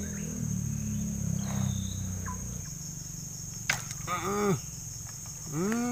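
Steady high-pitched insect drone from the surrounding jungle, with a sharp click about two thirds of the way through and two short voice-like sounds, each rising then falling in pitch, near the end.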